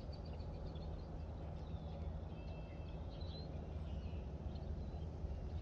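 Faint bird chirps over a steady low hum.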